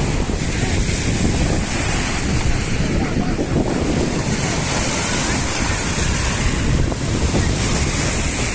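Black Sea surf washing in steadily, with wind buffeting the microphone.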